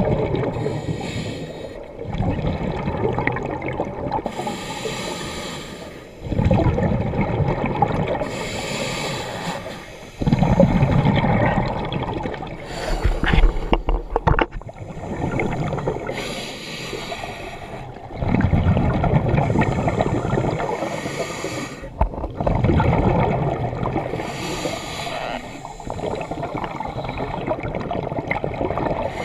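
Scuba diver breathing through a regulator underwater: a hiss on each inhale and a rush of bubbles on each exhale, one breath about every four seconds.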